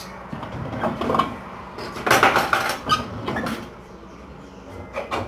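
Kitchen handling noises: a noisy scrape lasting about a second, about two seconds in, and a couple of sharp knocks near the end.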